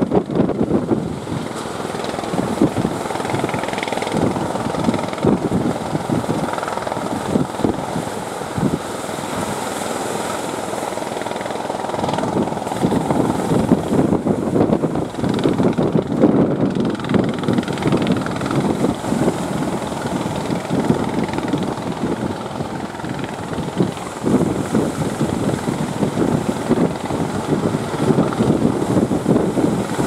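Strong wind buffeting the microphone in irregular gusts, a dense, continuous rushing rumble.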